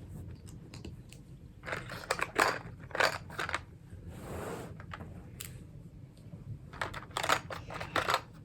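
Clicks, knocks and rattles of small plastic fidget toys being handled and pushed into their box, in two bursts with a soft rubbing sound between them.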